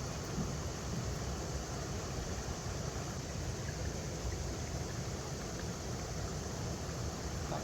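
River water flowing steadily over rocks: an even, unbroken rush with a strong low rumble underneath.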